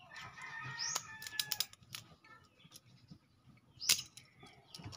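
Sharp metallic clicks from a homemade speargun trigger mechanism's line release being worked by hand to test it: a quick cluster of clicks between one and two seconds in and a louder snap about four seconds in. A chicken calls in the first second or two.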